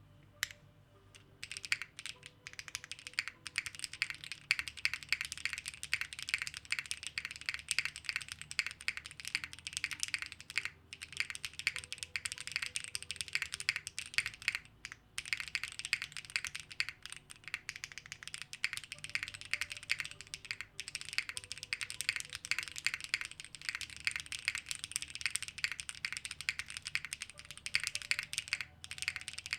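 Typing on a Dune65 custom mechanical keyboard with Kailh BCP switches, DCS keycaps and an ABS plate, giving a glassy clack. The keystrokes come fast and continuous, with a few short pauses.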